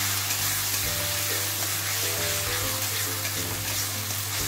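Spice paste with chilli and turmeric powder sizzling in hot oil in a kadai, stirred with a metal spatula: the masala being fried down until the oil separates.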